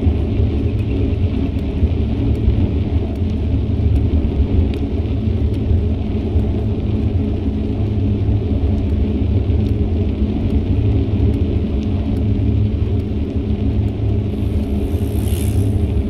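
Steady low rumble of wind buffeting an action camera's microphone while cycling, mixed with road noise. A brief hiss comes near the end.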